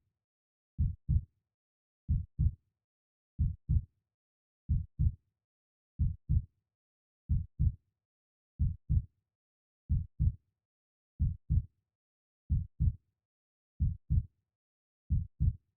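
Heartbeat: a slow, steady lub-dub, each beat a pair of short, deep thuds, repeating about every 1.3 seconds (about 45 beats a minute), with silence between beats.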